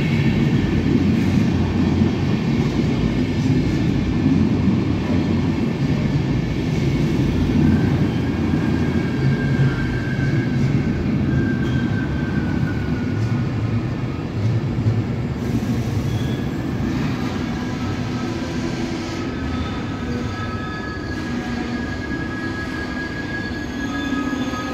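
Intercity passenger coaches rolling along the platform track, a steady heavy rumble of the running gear with high wheel squeal coming and going over it.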